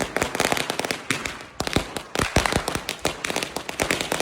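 Firecrackers going off in rapid, irregular sharp cracks and pops, easing briefly about a second and a half in before bursting again.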